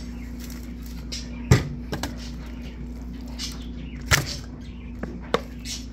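A raw rack of pork ribs being handled and turned over in a disposable aluminium foil pan: a few sharp knocks and rattles of the thin foil, the loudest about a second and a half in, over a steady low hum.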